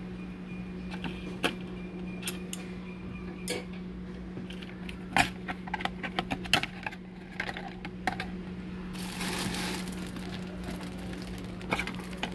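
Plastic packaging being handled: a clear plastic lid clicking and crackling as it goes back onto a takeaway meal bowl, with a cluster of sharp clicks about halfway through, then about a second of plastic-bag rustling. A steady low hum runs underneath.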